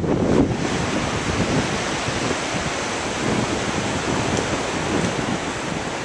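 Steady rushing wind, with low gusts buffeting the microphone in the first half second.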